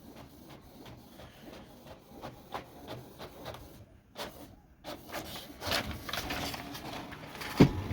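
Canon TR8520 all-in-one inkjet printer running a colour copy job: its mechanism clicks and whirs, getting busier in the second half, with a sharp clack near the end.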